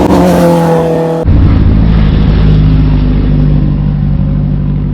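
Kawasaki Ninja sportbike engine running loud on the road, its note holding steady; about a second in the sound abruptly turns deeper and duller, with a heavy low rumble.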